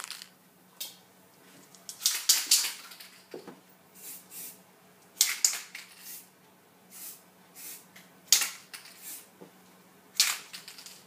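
Aerosol can of grey primer spraying in short hissing bursts, about ten of them, some brief puffs and some held for half a second or more. A faint steady low hum runs underneath.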